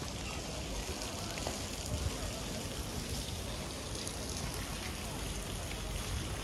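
Steady pattering hiss of falling wet snow, with faint voices in the background.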